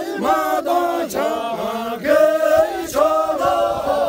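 A group of men chanting together in loud, sung voices, with a long held note near the end.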